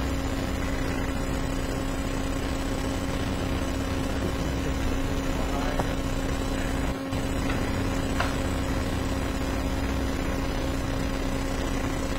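Steady hum and hiss of room tone through the courtroom's microphone system, with a few faint clicks.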